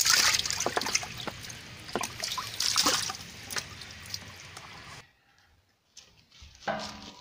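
Water pouring and sloshing into a large metal cooking pot, with splashes now and then; it cuts off suddenly about five seconds in, followed by a few faint knocks.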